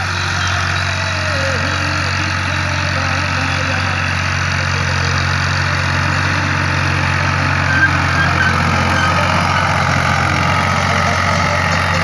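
Al-Ghazi (Fiat) tractor's diesel engine running steadily under load as it pulls a five-tine cultivator through the soil, a steady low drone.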